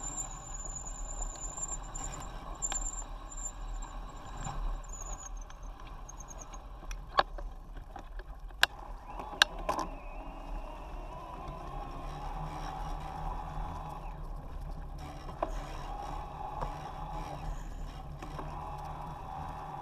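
Fat bike riding along a dirt trail, its knobby tyre rolling over grass and then dry leaves with a steady rumble. A thin, high squeal wavers over the first six seconds, and three sharp knocks come a little after the middle.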